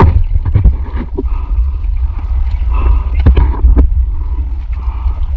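Water sloshing around a camera at the water's surface, with a steady low rumble and a few sharp knocks as divers handle a speared fish over a floating catch container.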